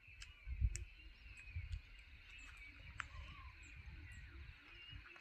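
Many small birds chirping and twittering together, a steady stream of short, high chirps with a few sharper ticks. Low rumbling comes and goes underneath, loudest about half a second in.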